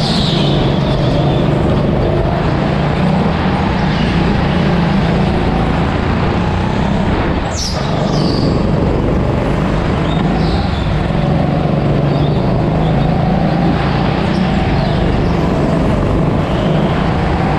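Rental go-kart engine running hard on track, its drone rising and falling in pitch as the kart speeds up and slows for corners, with a few brief high squeals.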